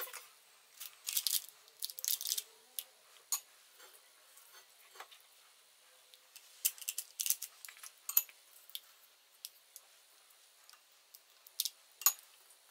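Metal spoon scraping and clicking against a steel mixing bowl and a small glass bowl of water while sticky yeast dough is spooned into paper baking moulds: scattered short scrapes and light clinks in two bunches, with one sharp click near the end.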